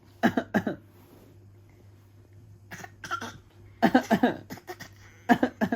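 Short, voiced coughs traded between a father and his eight-month-old baby, with the baby copying his father's cough. They come in quick pairs and small clusters, about five bursts, each falling in pitch.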